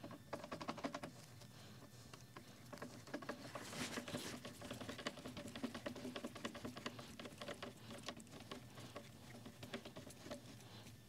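Small hand screwdriver turning screws into the laser engraver's rail and frame: rapid light clicking and scraping of the tool in the screw heads, in two spells, about half a second in and again from about three to six seconds in.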